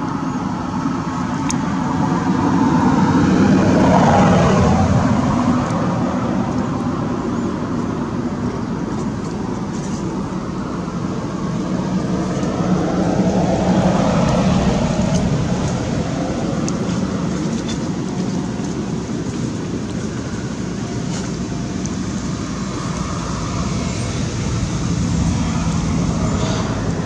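Outdoor road traffic: a continuous rumble of motor vehicles that swells and fades as they pass, three times over.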